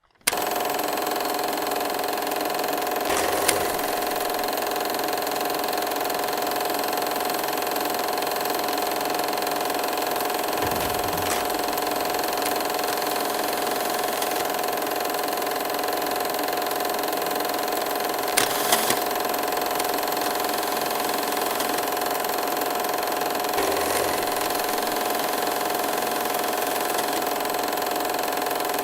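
Steady mechanical whir of a film projector running, with a constant hum and hiss, used as a film burn transition sound effect. A few short clicks or pops come through at irregular moments.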